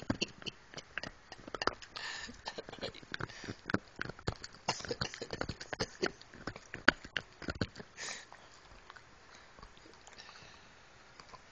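A Boston Terrier gnawing a hard chew bone right at the microphone: rapid, irregular clicks and knocks of teeth on the bone, mixed with snuffling sniffs through its nose. The gnawing dies away about eight seconds in.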